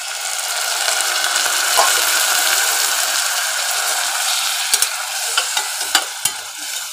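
Hot oil and fried onion-spice masala in a steel pressure cooker sizzling hard as a splash of water hits it, the hiss slowly easing, while a steel slotted ladle stirs. From about five seconds in, the ladle clicks and scrapes against the pot several times.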